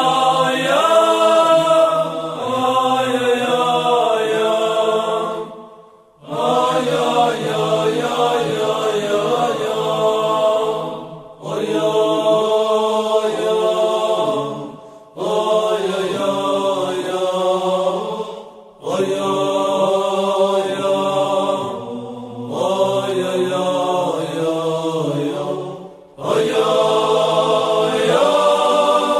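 A group of men singing a wordless Hasidic melody (niggun) in phrases of a few seconds each, with a short breath between phrases.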